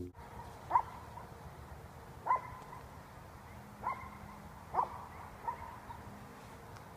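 A dog barking: five short barks spaced unevenly over about five seconds, the first the loudest.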